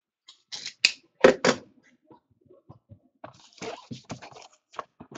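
A cardboard trading-card box being handled by hand: a few sharp knocks and scrapes against the table about a second in, then softer rustling as it is opened.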